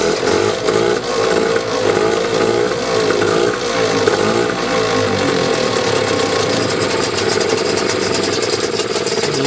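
Yamaha 3 hp single-cylinder outboard motor running in a test tank after repair. Its speed wavers up and down for the first few seconds, then settles steadier.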